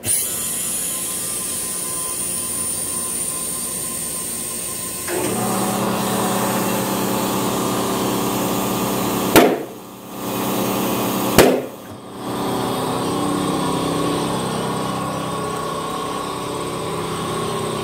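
Air compressor running while inflating an ATV tire, starting abruptly. About five seconds in it becomes louder and deeper with a steady motor drone. Two sharp knocks about two seconds apart come past the middle.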